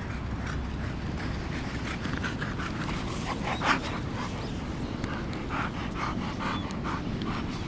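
Dog panting in short repeated breaths over a steady low rumble, with one louder short sound about three and a half seconds in.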